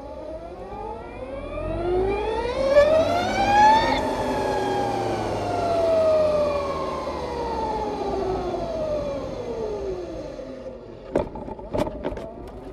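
2020 Harley-Davidson LiveWire electric motorcycle's motor and gear-drive whine, rising steadily in pitch for about four seconds as the bike accelerates, then falling slowly as it slows down. A few sharp knocks near the end.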